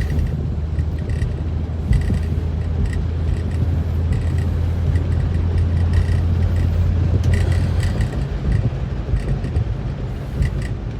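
1954 Chevrolet driving, its straight-six engine and drivetrain giving a steady low drone that weakens and turns uneven about eight seconds in.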